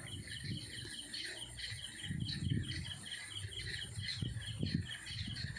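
Night insect chorus: a steady pulsing chirp repeating about four times a second, with other scattered chirps around it. A few low rumbles come and go, about two seconds in and again near the end.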